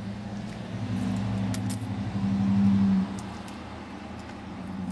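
Small camcorder parts clinking and rattling as they are handled and pried apart by hand, with a few sharp clicks about one to two seconds in, over a steady low hum that swells briefly near the middle.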